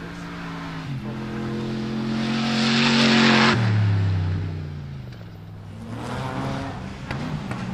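Off-road racing buggy engines under hard throttle. One engine climbs in pitch to its loudest about three seconds in, then drops suddenly to a lower note, and an engine revs up again near the end.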